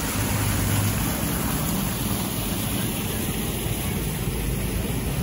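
Two small portable engine-driven water pumps running steadily, their outlets gushing water into the canal as they dewater a jumbo-bag cofferdam.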